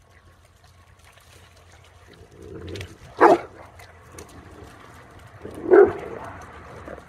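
Puppies barking: two barks, about two and a half seconds apart.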